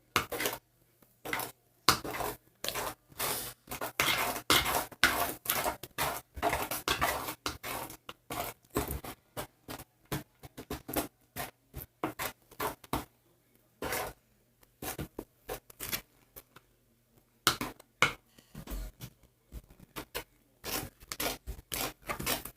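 Homemade slime being stirred and worked, a run of short irregular sticky scrapes and clicks that come thickest in the first eight seconds or so and thin out after.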